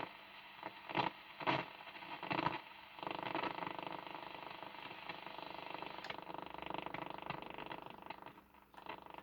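Cossor CR4212A valve radio's loudspeaker being tuned across the shortwave band. A few sharp crackles of static come in the first three seconds, then a steady buzzing interference with hum tones settles in and dips briefly near the end.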